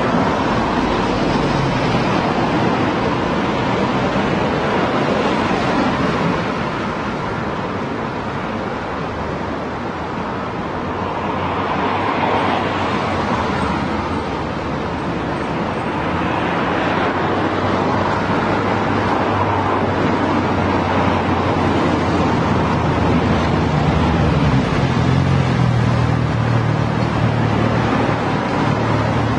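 Road traffic: a continuous wash of passing cars and tyre noise, with vehicles swelling past about twelve and seventeen seconds in, and a low engine hum growing louder near the end.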